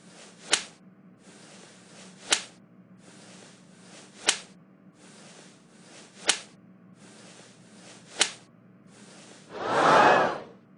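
Cartoon beating sound effects: five sharp whip-crack slaps about two seconds apart, each over a patch of hiss, then a loud pitched sound lasting about a second near the end.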